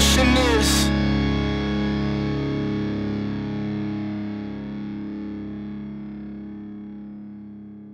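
The final chord of a rock song on distorted electric guitar, ringing out and slowly fading. The drums and other parts stop about a second in, leaving the held chord to die away.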